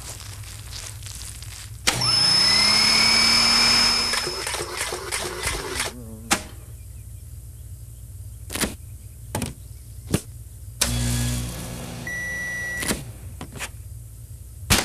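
Cartoon kitchen sound effects: a motor whirs up and runs loudly for about two seconds, then winds down. A few sharp clicks follow, then a short hum and a steady electronic beep from a microwave oven, and a loud click at the very end.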